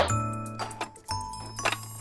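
Instrumental background music with a steady bass line and high, short plucked or struck notes.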